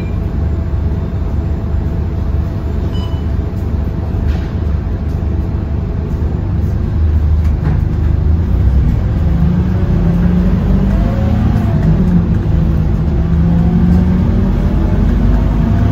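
Scania K230UB bus's five-cylinder diesel engine running with a steady low rumble, growing louder about seven seconds in as the bus accelerates.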